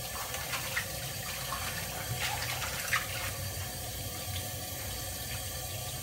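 Kitchen tap running steadily into a stainless steel sink while dishes are washed by hand, with a few brief knocks of a bowl or plate against the sink.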